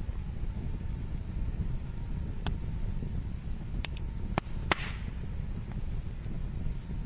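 Wood fire burning: a steady low noise of the flames with about six sharp crackles and pops of the burning wood, the loudest pop about two-thirds of the way through.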